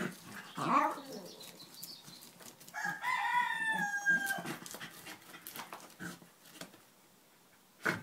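Jack Russell terrier hunting rats in a shed, sniffing and scrabbling among debris with scattered scrapes and knocks. A short whine comes just before a second in, a long high call rises and then slowly falls about three seconds in, and there is a sharp knock near the end.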